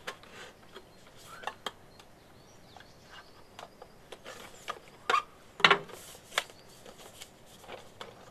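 Cardboard and clear-plastic packaging of an action camera being opened and slid apart by hand: scattered light rustles, scrapes and clicks, with a few louder sharp clicks and scrapes between about five and six and a half seconds in.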